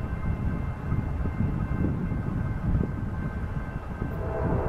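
Approaching freight train led by GE C44-9W diesel-electric locomotives, a low rumble growing louder. A steady tone joins in about four seconds in.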